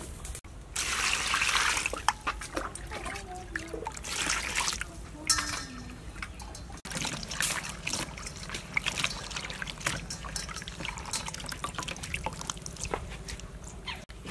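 Water sloshing and splashing in a stainless steel bowl as hands rub and wash mushrooms, with a louder rush of water about a second in. Drips and trickles follow as handfuls of wet mushrooms are lifted out.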